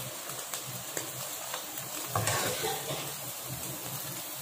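Hot oil sizzling steadily in a kadai after frying paneer, with light clicks of a perforated steel skimmer against the pan as the pieces are lifted out. A louder stir and clatter about two seconds in.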